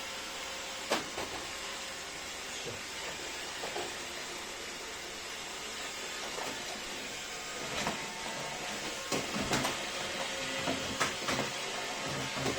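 An iRobot Roomba 606 robot vacuum running, with the steady whirring hiss of its vacuum motor and brushes. Sharp knocks and clicks come once about a second in and then several times in the last few seconds.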